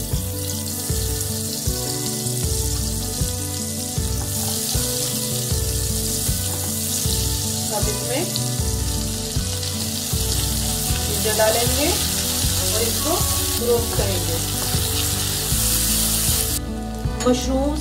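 Butter melting in hot olive oil in a nonstick pan, sizzling and bubbling steadily as a silicone spatula stirs it; the sizzle grows louder a few seconds in and cuts off suddenly near the end. Background music plays underneath.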